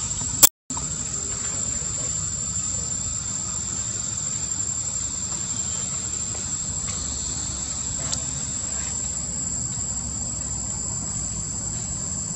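Steady high-pitched drone of insects over a low, steady rumble. A sharp click and a brief cut-out in the sound about half a second in.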